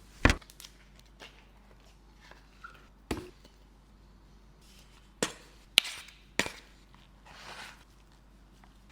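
Sharp knocks and taps, five or so spread out with pauses between them, the loudest right at the start.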